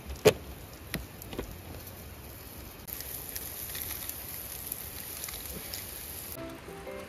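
Pork belly on foil over a charcoal grill, sizzling with a steady high hiss and light crackling from about three seconds in, after a sharp click near the start. A light music tune comes in near the end.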